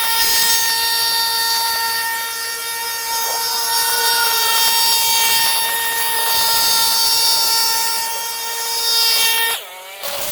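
Power tool running at a steady high whine with a hiss above it, cutting off suddenly near the end.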